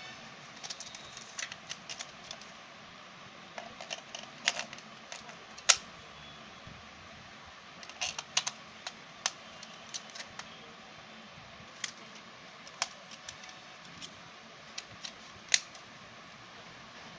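Irregular plastic clicks and taps from two AA batteries being pushed into the spring contacts of a toy RC car's plastic remote and its battery cover being handled and shut, with a few sharper snaps among them.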